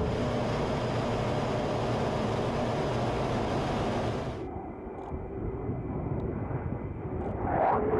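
Fighter jet engine roar, cutting off abruptly about four seconds in to a quieter, duller jet rumble with a short rising whoosh near the end.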